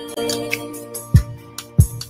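Background music from an instrumental passage of a slow love song, with held notes and two drum beats.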